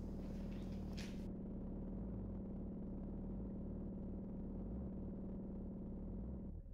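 A steady low drone held on one pitch, with a rumble beneath it. A high hiss drops out suddenly about a second in, and the drone shifts just before the end.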